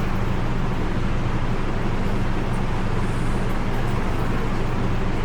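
Steady electrical hum and hiss from a sound system, with low hum tones that do not change.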